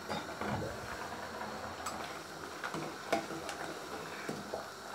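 A glass lid is lifted off a stainless-steel pot of simmering chicken soup, then a metal ladle stirs the bubbling soup, with a few light clinks of the ladle against the pot.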